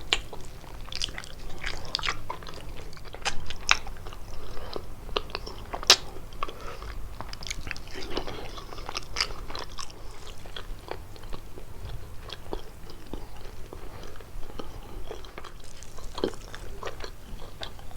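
Close-up chewing and biting of kalaj, a pastry filled with walnuts and cheese, with frequent short crunching clicks, the sharpest about six seconds in.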